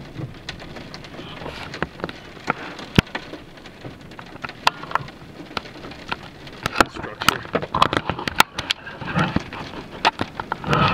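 Rain pattering on the car, with many sharp, irregular taps of large drops striking the body, coming more thickly in the second half.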